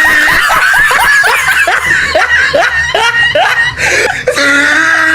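Cartoon snoring sound effect for a Numberblocks character: a high, artificial voice making quick snickering chirps, about three a second, over a steady low drone.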